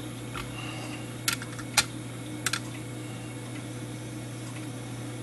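A handful of small, sharp metallic clicks of brass clock parts being handled as a hand is fitted onto the arbor of an English eight-day clock movement, clustered between about one and two and a half seconds in, over a steady low hum.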